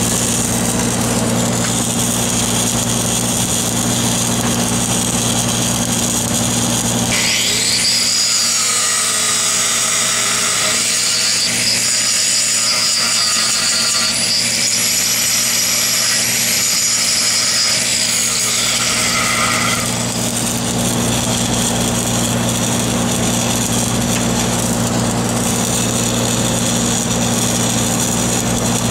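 Engine-driven welding machine running steadily. For a stretch in the middle, a noisy power-tool sound takes over, with a pitch that rises and falls.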